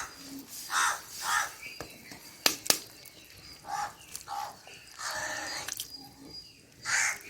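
Crows cawing repeatedly, with two sharp clicks close together about two and a half seconds in.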